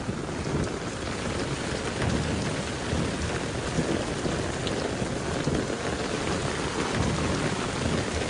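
Heavy rain falling steadily on a paved walkway and hedges, a dense, even downpour.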